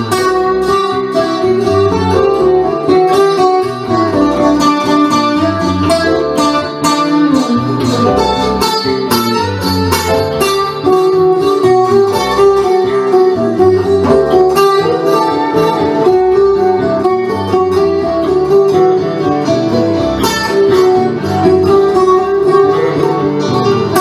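Instrumental music led by guitar, notes plucked in a steady run, with no singing.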